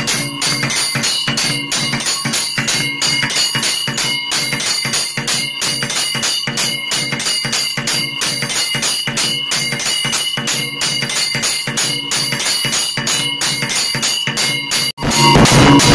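Brass temple bells ringing rapidly with drum beats in a fast, steady rhythm, the sound of an automatic temple bell and electronic dhak machine. It breaks off sharply near the end, and a louder passage follows.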